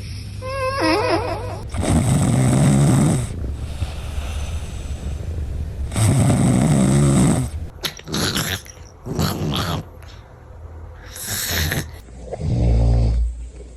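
Sleeping cats snoring: two long snores about four seconds apart, then a run of shorter snores in quick succession, and a deep low snore near the end.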